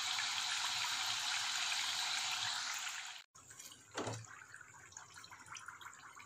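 Kai murukku (rice-flour spirals) deep-frying in hot oil: a dense, steady sizzle that cuts off suddenly about three seconds in. It gives way to a much quieter, sparser sizzle, with a soft knock about a second later as a slotted ladle turns the pieces. The quieter oil noise goes with the murukku being nearly done.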